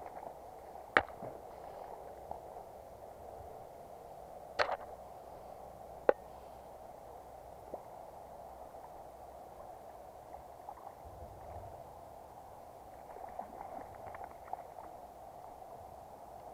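Steady rush of flowing river water, broken by three sharp clicks in the first half, which are the loudest sounds, and a few fainter ticks later.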